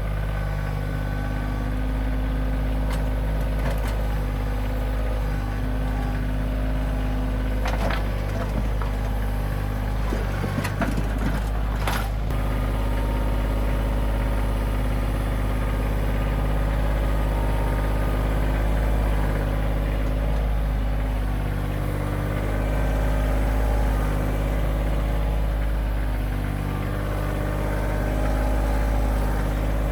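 Kioti CK2610 compact tractor's diesel engine running steadily, with a few knocks a third of the way in.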